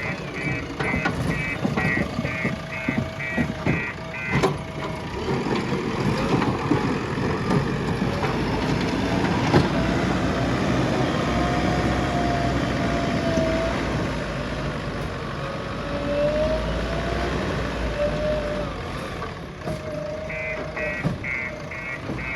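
JCB 3DX backhoe loader's diesel engine working under load, with its reversing alarm beeping about two and a half times a second for the first few seconds and again near the end. Occasional knocks and clanks sound from the machine in between.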